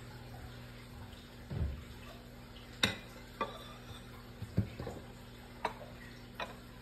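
Pancake frying in oil under a glass pan lid: a steady low hum with irregular sharp pops and ticks about once a second, and a soft low thud about a second and a half in.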